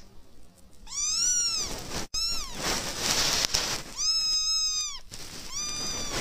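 A young kitten meowing: four high-pitched meows, each under a second long, that rise and fall in pitch.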